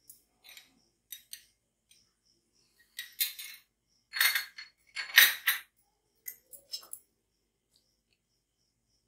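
Kitchen utensils clinking and scraping as ingredients go into a mixer-grinder jar. A few light clicks, then three louder scraping clatters in the middle, the last the loudest, then a few light clicks.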